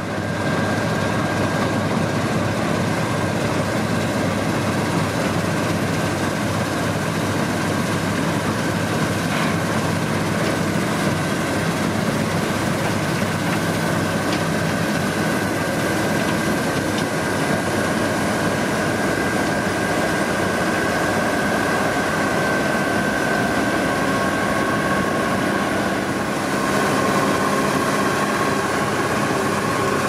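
Claas Lexion 740 combine harvester running while harvesting wheat: a steady engine drone under the whine of its threshing machinery. A high whine holds throughout, and a second, lower whine joins about three-quarters of the way through.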